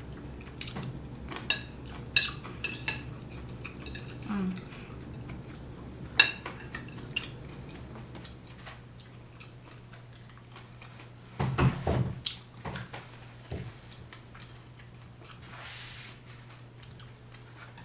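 Cutlery and dishes clinking and tapping as food is handled on a plate, in scattered short strokes, with a louder clatter a little past the middle.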